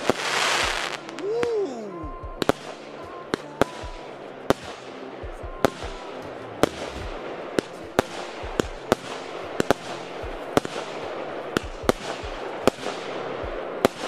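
Fireworks going off: a dense crackling burst, then a short whistle that rises and falls. After that come sharp single bangs of shells bursting, about one or two a second.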